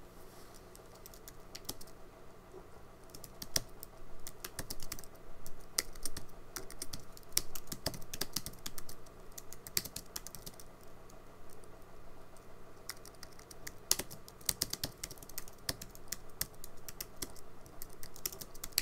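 Typing on a computer keyboard: quick runs of key clicks in several bursts separated by short pauses.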